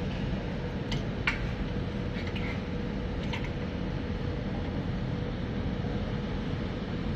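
Steady whirring background noise with a faint hum, and a few light clicks between about one and three and a half seconds in.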